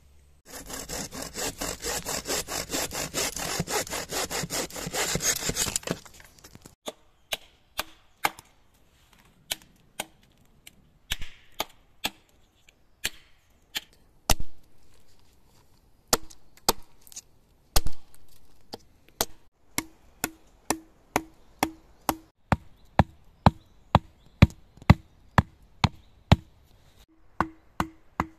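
A hand saw cutting through wood in rapid back-and-forth strokes for about six seconds. It stops, and a series of sharp blows on wood follows, irregular at first, then steady at about two a second.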